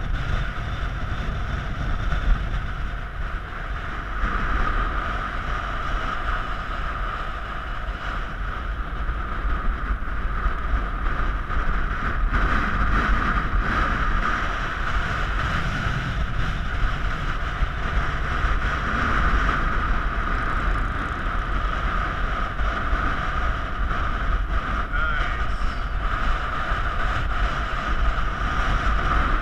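Wind buffeting the microphone, with a steady high whine running through it.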